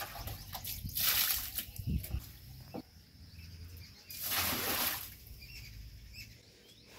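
Water thrown from a mug onto a tiled floor, splashing twice: briefly about a second in, and again for longer about four seconds in.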